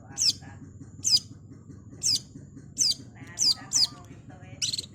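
Long-tailed shrike (cendet) calling: sharp, high, downward-sliding notes repeated about once a second, with a quick pair a little past the middle and softer chattering beneath.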